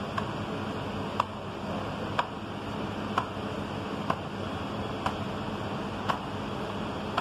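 A clock ticking about once a second in an even rhythm over a constant low hum.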